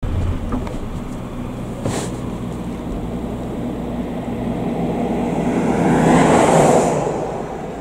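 A steady low engine hum, with a vehicle passing by: it grows louder from about halfway through, peaks near the end and then fades. There is a single sharp click about two seconds in.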